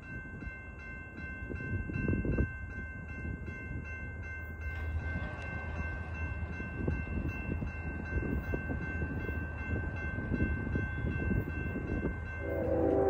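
Railroad grade-crossing warning bell ringing in quick pulses over the low rumble of an approaching freight train, which grows louder. The lead locomotive's air horn comes in just before the end.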